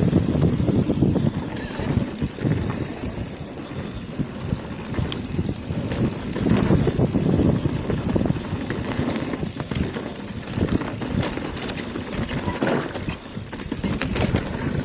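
Mountain bike riding down a dirt trail: tyres rolling over dirt and rocks, with the bike rattling and clattering over bumps and wind buffeting the microphone.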